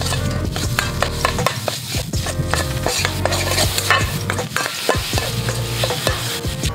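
Minced meat sizzling in a wok while a metal ladle stirs and breaks it up, scraping and tapping against the pan in quick repeated strokes.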